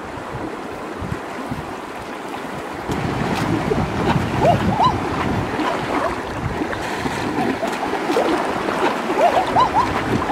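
Fast-flowing shallow river rushing over rocks, with splashing and gurgling as someone wades through the current; it gets louder about three seconds in.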